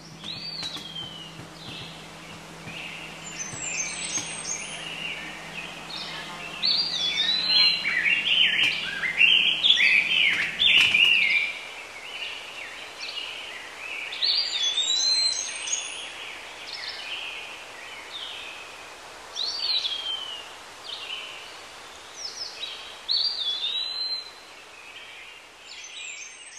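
Songbirds chirping and singing, several calls overlapping, with repeated whistled notes that rise and then fall away; the song is busiest about a third of the way through.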